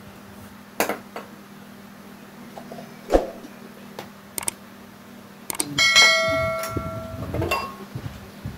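Tableware clinking during a meal: chopsticks and spoons tap porcelain rice bowls and metal cookware in scattered clicks. About six seconds in, one sharp clink sets a metal pot or pan ringing for about a second and a half.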